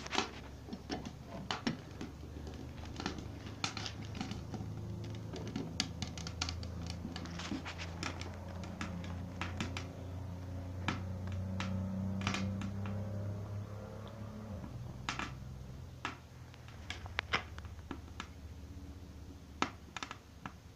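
Wood fire crackling inside a popcorn-tin wood stove: irregular sharp pops and snaps. A low steady hum runs underneath and swells in the middle.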